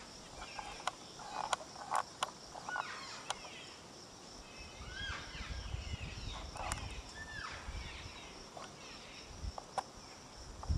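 Elk cows and calves calling: several short, high squealing chirps that rise and fall in pitch, starting about five seconds in. Beneath them is a steady high insect hum, with a few sharp clicks in the first three seconds.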